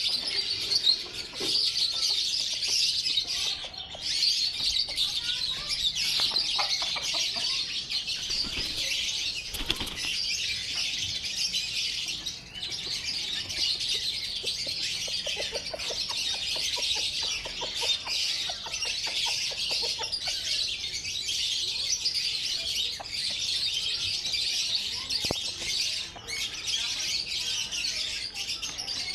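A large flock of chickens in a poultry house: a dense, unbroken din of high-pitched peeping, with lower clucking calls breaking through now and then.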